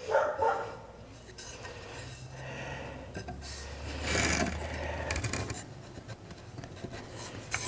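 Wooden furniture parts being handled, rubbing and scraping against each other with a few light knocks; the loudest scrape comes about four seconds in.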